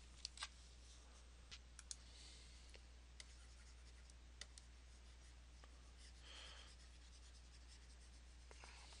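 Near silence with scattered faint clicks and a brief light scratch from a stylus tapping and writing on a pen tablet, over a low steady hum.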